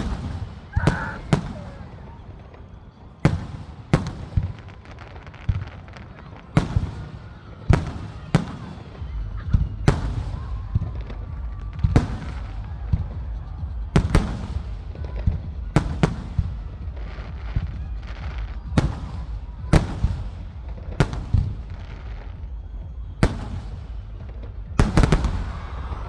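Fireworks display: aerial shells bursting in a steady series of sharp bangs, roughly one a second, over a low continuous rumble that grows heavier about a third of the way through.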